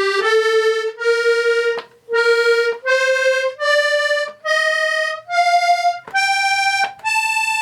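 Hohner Corona III diatonic button accordion in B♭/E♭/A♭, its treble reeds sounded one button at a time: about nine single sustained notes, each under a second, with short breaks between, climbing stepwise in pitch as the right-hand tuning is checked.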